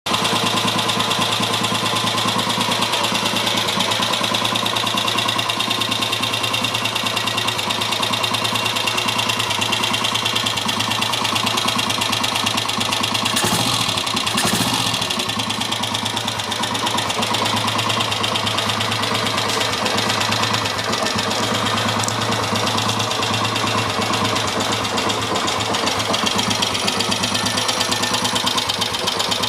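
Kawasaki Meguro SG250's single-cylinder four-stroke engine running steadily at idle, making an abnormal noise in its running. Two brief louder noises come about halfway through.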